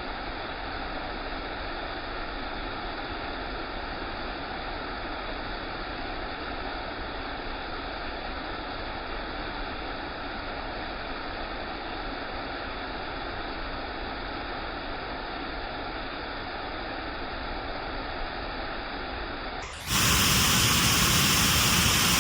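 Waterfall rushing: a steady, even roar of falling water. Near the end it suddenly becomes louder and brighter.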